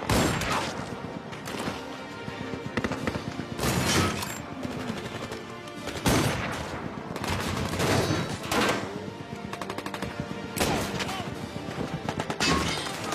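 A film gunfight soundtrack: rifle shots fired one after another, with a quick run of automatic fire about two-thirds of the way through, over a music score.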